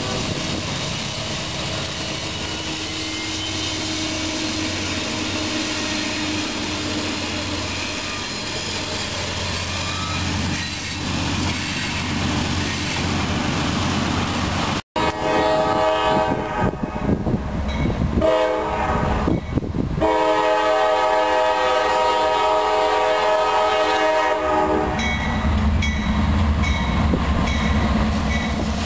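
Freight train rolling past with a steady rumble of locomotives and tank cars. After a cut, an approaching Norfolk Southern GE C40-9W diesel locomotive sounds its air horn in several chord blasts, one held for about five seconds.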